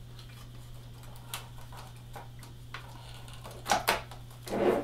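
Small parts being handled and fitted into a model locomotive's tender: scattered light clicks and taps, then two louder rustling scrapes near the end, over a steady low hum.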